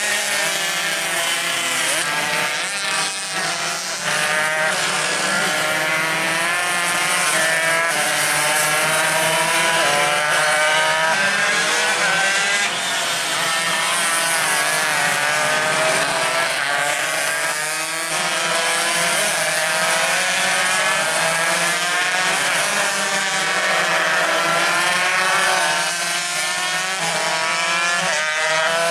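Several tuned Yamaha RX-King two-stroke race motorcycles running hard at once, their engines revving high and climbing in pitch over and over as they accelerate and shift through the gears.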